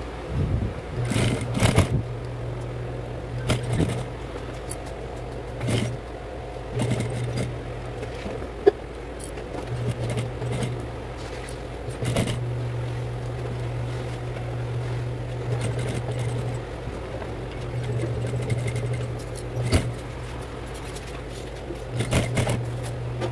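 Industrial lockstitch sewing machine sewing in several short runs, its motor humming steadily while it stitches and stopping between runs. In the pauses come rustles and knocks of the bag's canvas being repositioned, with one sharp click about nine seconds in.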